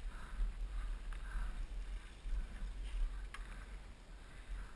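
Low, steady rumble of wind buffeting a helmet-mounted camera's microphone while a mountain bike rolls over a dirt track, with faint scattered noise and a single sharp click about three seconds in.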